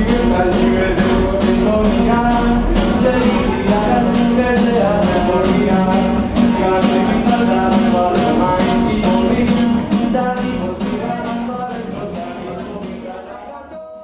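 Music with a steady beat and a melody line, fading out over the last few seconds.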